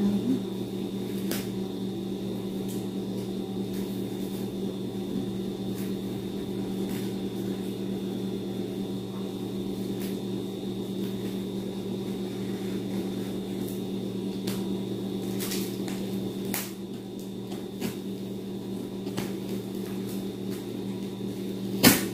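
Scissors cutting through thick layers of packing tape on a cardboard parcel, a few scattered snips and clicks with a sharper click near the end, over a steady low hum.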